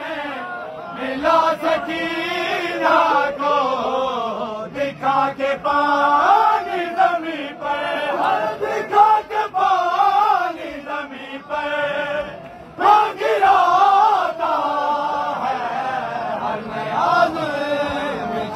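Men's voices chanting a noha, a Shia mourning lament, in a rising and falling melody, with sharp hand slaps of chest-beating (matam) breaking in now and then.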